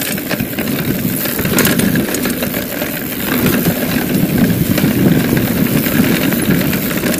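A mountain bike riding fast down a dirt singletrack: steady rumble of the tyres on the trail and wind on the microphone, with occasional clicks and rattles from the bike.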